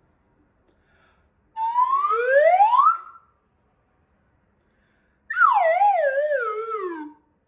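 Metal slide whistle played in two pitch glides for singers to copy: first a smooth rise of about a second and a half, then, after a two-second pause, a fall in wavy swoops down to a low note.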